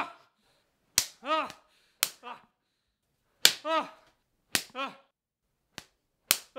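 A spatula smacking bare skin, about six sharp slaps roughly a second apart, most followed at once by a short cry that rises and falls in pitch.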